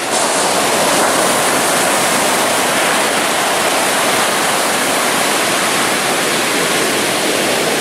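Ocean surf breaking on a beach: a steady, unbroken rush of waves that fills the whole sound.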